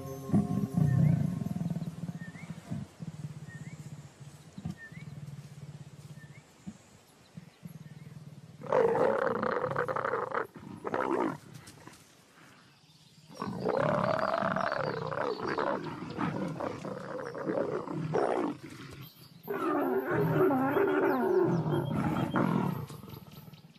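A mating pair of leopards growling in three long, loud bouts, the first starting about nine seconds in, the vocalising that goes with copulation.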